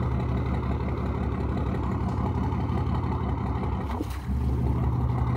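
Princess 414 motor yacht's twin diesel engines idling steadily while the mooring lines are made fast, with a brief dip in the sound about four seconds in.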